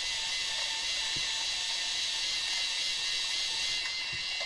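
Kyocera Samurai Z2 film camera's built-in electric motor whirring steadily with a high-pitched whine.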